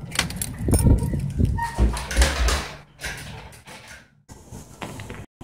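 Rustling and bumping from a handheld phone being carried while someone walks in through a glass entrance door, with knocks from the door being pushed open. The sound drops out briefly twice near the end.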